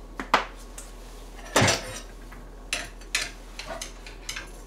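Kitchen utensils clacking and knocking against dishes: a string of separate sharp clinks, the loudest about a second and a half in.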